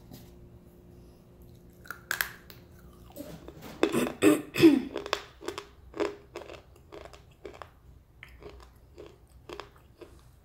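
A person biting into an Indian slate pencil with a crisp snap about two seconds in, then chewing it with loud dry crunches. The crunches settle into steady chews about twice a second and grow fainter near the end.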